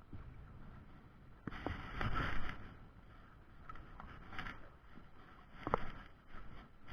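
Wind buffeting the microphone in uneven gusts, strongest about two seconds in, with a few sharp clicks or knocks.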